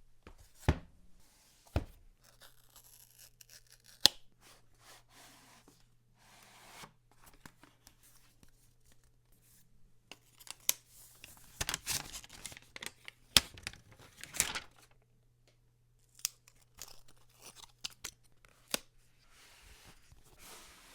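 Packaging being opened by hand: paper tearing and rustling, with sharp clicks and taps as the boxes and lids are handled, busiest about halfway through.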